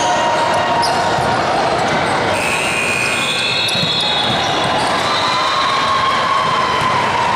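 Basketball bouncing on a gym floor during play, over a steady din of voices from players and spectators.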